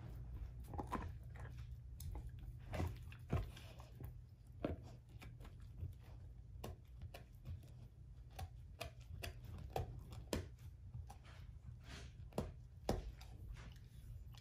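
A German shorthaired pointer chewing an air-dried, hair-on pig foot: irregular sharp crunches and cracks, a few every second, with the loudest about three seconds in and again near the end, over a steady low hum.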